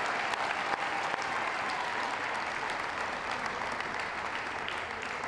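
Audience applauding, a dense, even clapping that slowly dies down.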